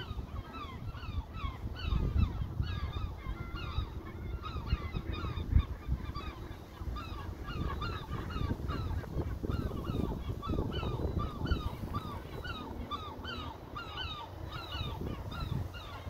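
A flock of waterbirds calling continuously: many short, falling calls overlap, several a second, over wind rumbling on the microphone.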